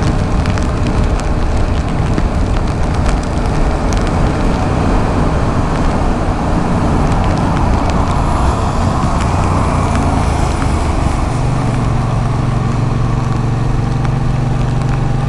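Yamaha MT-07 parallel-twin motorcycle being ridden on a wet road: the engine runs under a steady wash of wind and tyre noise. About 11 seconds in, a steady low engine hum comes in and holds.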